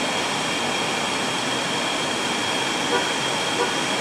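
Car air-conditioning blower running steadily inside the cabin: an even hiss with a faint high tone running through it.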